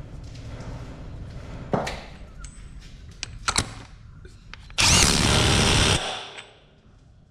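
Power impact wrench running a burst of about a second and a quarter, about five seconds in, driving the transfer case front output flange nut down firm, after a few lighter metal clanks of tools.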